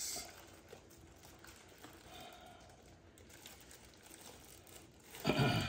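Clear plastic protective bag and shrink wrap around a lens crinkling faintly as it is handled. A short voice sound comes near the end.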